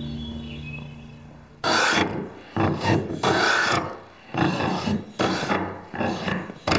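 Hand plane shaving a wooden board in repeated push strokes, about eight strokes in five seconds, starting about a second and a half in.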